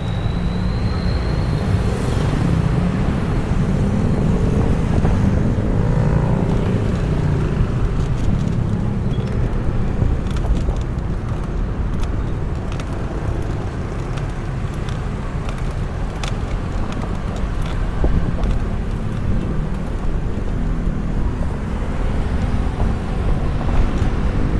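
Road noise from a moving bicycle among motor traffic: a steady low rumble with passing vehicles, and a few faint clicks through the middle.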